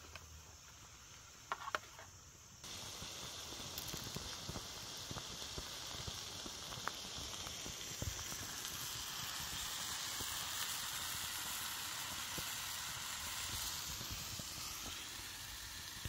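Hamburger steak and onions frying in a mess-tin pan with a splash of water: a steady crackling sizzle that starts suddenly about three seconds in, after a quieter start with a couple of light knocks.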